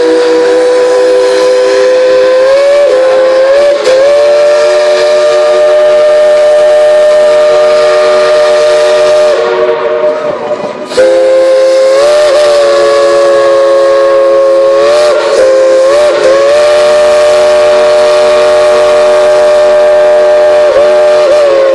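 Steam whistle of the Baldwin 2-8-2 narrow-gauge locomotive Klondike Katie blown in long, loud blasts, several notes sounding together as a chord. The pitch wavers briefly a few times as the engineer plays it, and it dips and comes back about halfway through.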